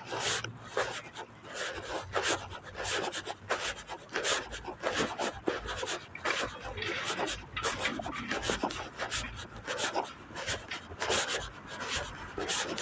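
Rubbing and scratching on a handheld phone's microphone as it is carried while walking: a dense, irregular run of scratchy clicks.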